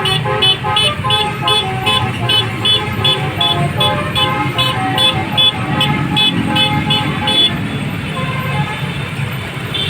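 Basuri multi-tone "telolet" bus horn playing a quick tune of short notes, about three a second, over a running engine and traffic rumble. The tune stops about seven and a half seconds in, and a single short horn note follows near the end.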